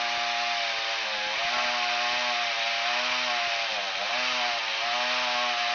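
Gas chainsaw running at a high, steady engine note while cutting through a tree, the pitch dipping briefly twice, about a second in and again near four seconds.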